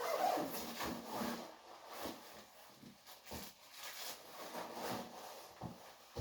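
Rustling and handling noises with several soft knocks, like things being moved about.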